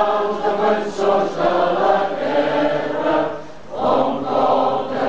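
Large crowd singing together in unison, many voices on one slow melody, with a brief break between phrases about three and a half seconds in.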